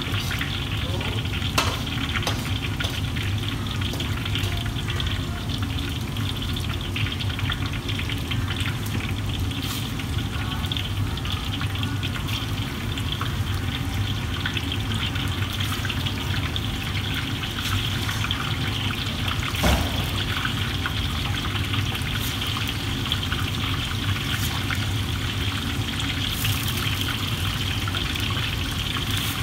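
Steady rumble and hiss of a commercial gas wok range, with sauce simmering and bubbling in the woks. An occasional sharp clank of metal, the clearest about twenty seconds in.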